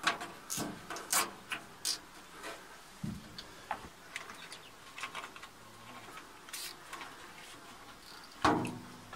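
Nylon zip ties being pulled through their ratchets and snugged around sensor cables: short rasping zips and clicks at irregular intervals, with a louder, briefly pitched sound near the end.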